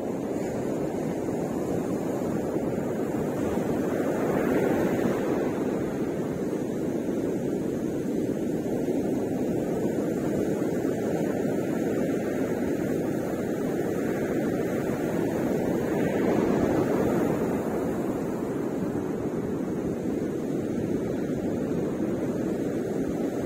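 Ocean surf breaking on a beach: a steady low rush of waves, swelling louder about four seconds in and again at about seventeen seconds.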